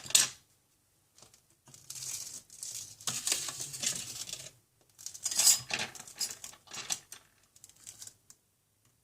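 Handling of small phone parts and tools on a repair bench: a sharp click, then spells of rustling and scraping, and scattered light clicks toward the end.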